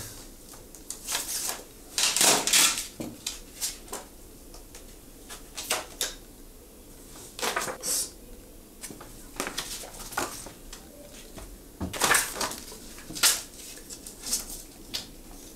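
Plastic CD cases and their packaging being handled: scattered clicks, taps and rustles at irregular intervals, a few louder clacks among softer ones.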